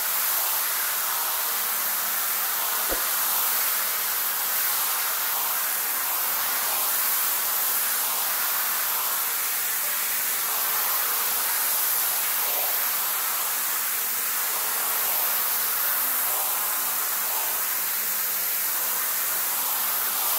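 Pressure-washer jet spraying onto a wet, soapy rug: a steady hiss of high-pressure water hitting the pile and splashing on the floor.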